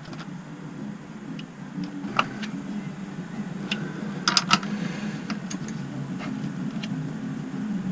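Screwdriver working screws on battery terminal connections, giving scattered metallic clicks and scrapes, a small cluster of them about halfway through, over a steady low hum.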